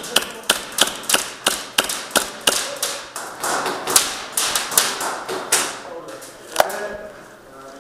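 Gas blowback airsoft gun firing rapid semi-automatic shots, about three sharp cracks a second with slide clacks, stopping about six and a half seconds in.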